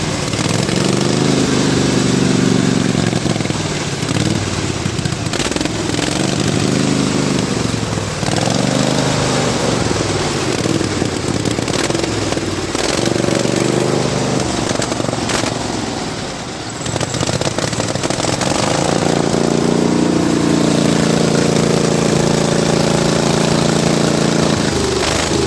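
Pulley-swapped riding lawnmower's engine running hard, its pitch rising and falling again and again, then holding steady and high for the last few seconds.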